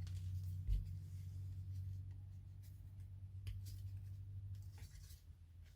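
Faint scraping and rustling with a few light clicks as model parts are handled and pushed together into a slot, over a steady low hum.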